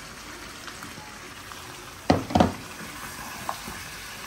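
Lamb curry sizzling steadily in a pot as raw butternut squash cubes are tipped in and stirred with a wooden spoon. There are two loud knocks close together about two seconds in and a lighter tick near the end.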